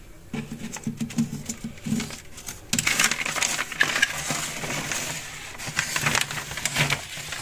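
A shelf-liner sheet being pulled off a cabinet shelf by hand. At first there are scattered handling clicks and knocks, then from about three seconds in a continuous crinkling rustle as the sheet is dragged out and crumpled.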